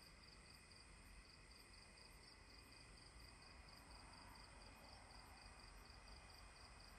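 Near silence: faint night ambience with a high insect chirping, pulsing evenly about four to five times a second.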